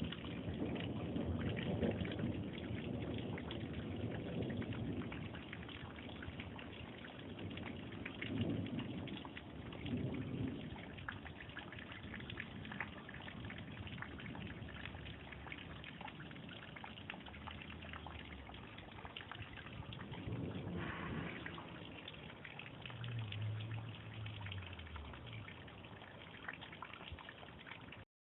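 Steady rain falling, with several rolling rumbles of thunder: one in the first few seconds, more about eight and ten seconds in and about twenty seconds in. Near the end a deeper rumble slides downward in pitch. These rumbles sound like afterburners in the sky.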